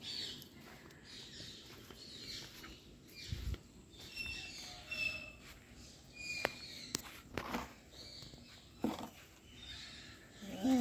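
Quiet outdoor ambience: short high chirps of small birds here and there, scuffing footsteps on dirt ground and a few sharp clicks. A brief, louder pitched sound comes near the end.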